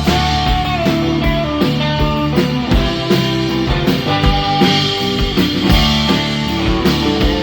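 Rock band playing with guitars, bass and drum kit, a steady kick-drum beat under held guitar notes.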